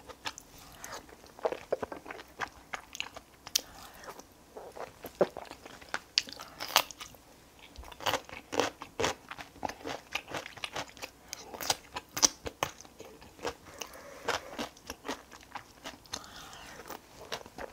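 A person eating curry rice, close-miked: chewing and mouth smacking made of many short, irregular clicks and crunchy bites.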